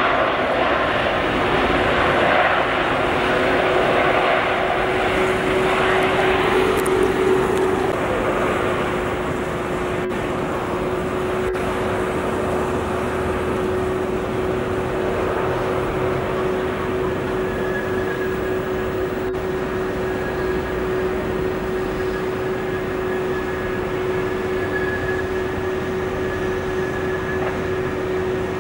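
Airbus A380-800 jet engines during the landing rollout: a loud rushing roar for the first several seconds that eases off, leaving a steady engine hum with a held tone as the airliner slows on the runway.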